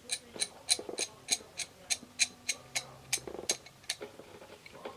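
Steady, even ticking, about three ticks a second, with faint rustling and handling of hand tools underneath.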